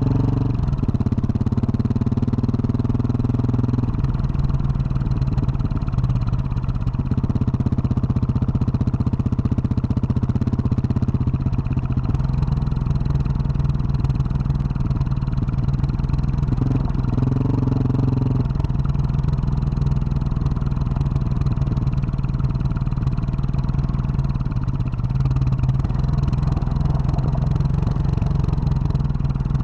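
2021 Husqvarna 701 Supermoto's single-cylinder engine with a Wings aftermarket exhaust, running while the bike is ridden on a dirt road. The engine note shifts several times as the throttle is opened and closed.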